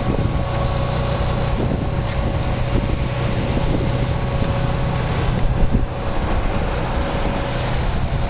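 A motor vehicle's engine running steadily, with a low hum and a faint steady whine, and wind buffeting the microphone.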